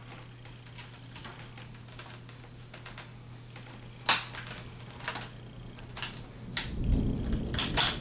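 Small plastic clicks and taps as the hinge cover of an HP EliteBook 840 G1 laptop is worked loose, with a sharp snap about four seconds in. Near the end, a run of louder clicks and knocks as the part is handled.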